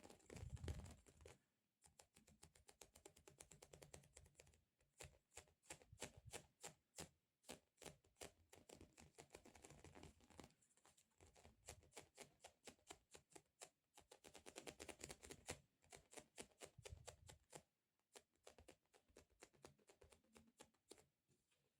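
Fingers tapping quickly and lightly, several taps a second, in runs broken by brief pauses.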